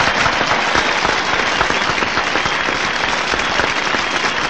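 Audience applauding at the end of a song: a dense, steady clatter of many hands clapping.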